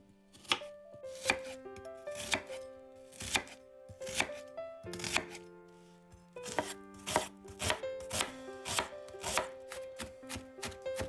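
Chef's knife cutting a peeled onion on a bamboo cutting board. Slow slicing strokes land about once a second, then faster chopping, about two strikes a second, begins about six and a half seconds in as the onion is diced.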